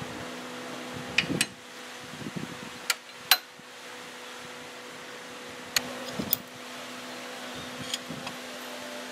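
Metal parts clinking and tapping inside an engine lathe headstock housing as shift rods and parts are handled and fitted: several sharp, briefly ringing clinks in small clusters, the loudest a little over three seconds in, over a steady electric hum.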